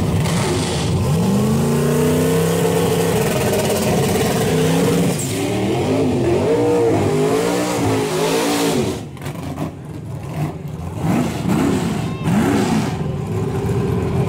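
Mustang drag car's engine revved repeatedly, its pitch rising and falling in a string of blips. About two-thirds in it drops to a quieter run, with a few short blips near the end.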